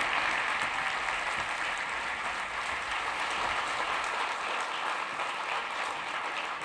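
Audience applauding in a theatre, the clapping slowly dying down.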